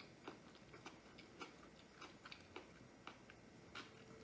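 Faint chewing of a bite of sushi: soft, irregular little mouth clicks, a few each second.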